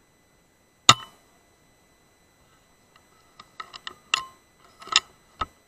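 A single sharp shot from a Weihrauch HW100S .22 sub-12 PCP air rifle about a second in. From about three seconds in comes a run of small sharp clicks and knocks.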